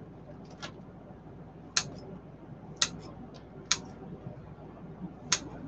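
Kitchen scissors snipping pepperoni slices into large pieces: a handful of short, sharp snips, about one a second and irregularly spaced.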